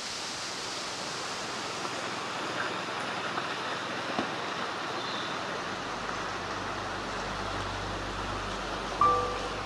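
Steady rush of a mountain trout stream's running water. Near the end a single pitched note sounds suddenly and fades.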